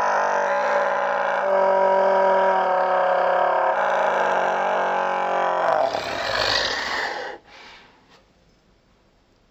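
A man's long, loud, sustained scream, held on a steady pitch, cutting off about seven seconds in.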